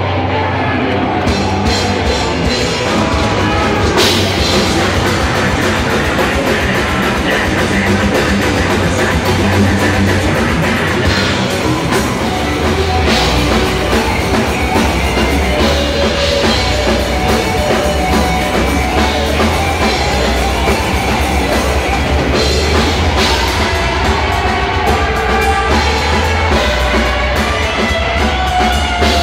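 Live heavy metal band playing: distorted electric guitars over a drum kit, dense and loud.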